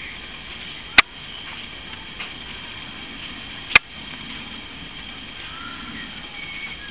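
Steady outdoor hiss with two sharp clicks about three seconds apart, and a few faint short high chirps near the end.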